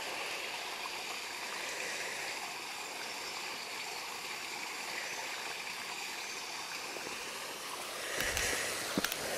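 Shallow, stony woodland stream trickling and running over stones in a steady rush of water. A few low thuds come near the end.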